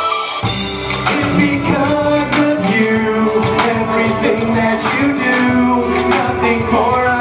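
Hip hop backing track playing through a single loudspeaker, with the full beat of bass and drums coming in about half a second in after a brief break. Male rappers perform over it into handheld microphones.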